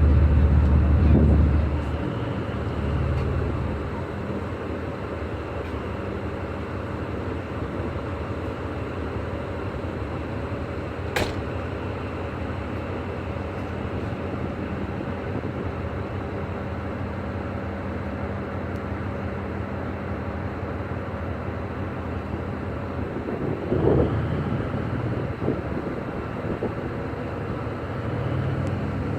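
Boat engine running steadily under way, a constant drone. Wind buffets the microphone at the start and again near the end, and there is one sharp click about a third of the way through.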